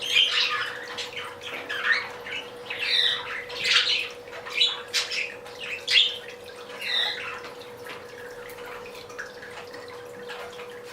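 Budgerigars chirping and squawking in quick, short calls, busiest through the first six or seven seconds and then thinning out, over a steady low hum.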